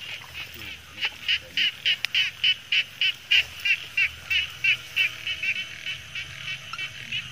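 A frog calling a run of short notes, about three a second, that fades after about five seconds, over a steady chorus of frogs and insects.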